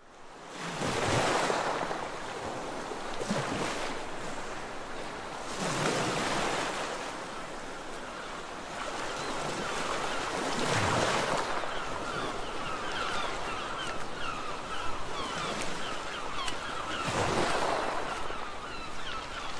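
Sea waves breaking on a beach: a steady wash of surf that swells into a stronger breaker about five times. In the second half a run of faint, quick high chirps joins in.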